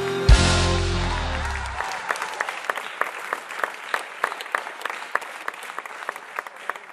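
A live band's final chord, with a drum hit just after the start, rings out and dies away over about two seconds. Audience applause takes over, separate claps that slowly fade.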